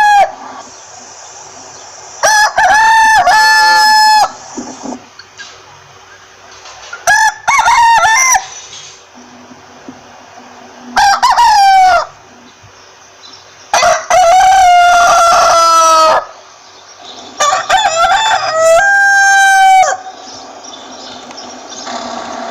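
Rooster crowing five times, each cock-a-doodle-doo lasting one to two and a half seconds, a few seconds apart, with quieter hen clucking between the crows.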